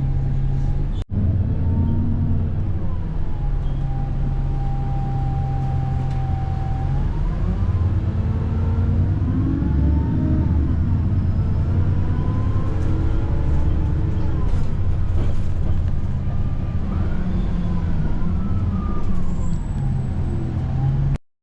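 Steady low rumble of a vehicle engine and road traffic, with faint voices in the background; it cuts off abruptly at the end.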